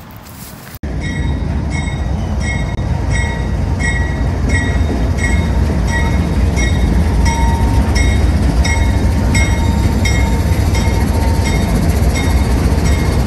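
CSX freight train passing close by with a loud, steady low rumble, starting abruptly under a second in. Over the rumble a bell rings about twice a second.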